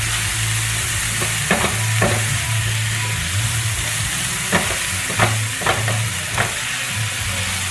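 Sliced vegetables sizzling in a hot oiled skillet, stirred with a silicone spatula, with several short scrapes of the spatula across the pan over a low steady hum.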